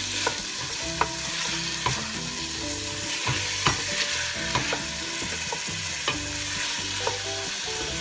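Chicken breast pieces, onion and garlic sizzling in butter in a stainless steel pot, stirred with a wooden spoon that scrapes and knocks against the pot about once or twice a second over a steady sizzle.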